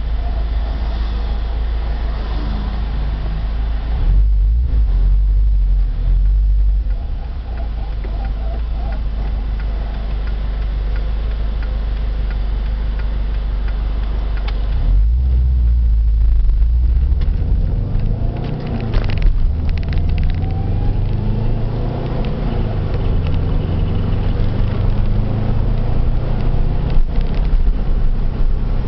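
Subaru Impreza GC8 on the move: steady low road and drivetrain rumble, heavier for a few seconds twice, with a rise in pitch about two-thirds of the way in as it speeds up. The car has a worn wheel hub bearing whose noise is faint under the road rumble.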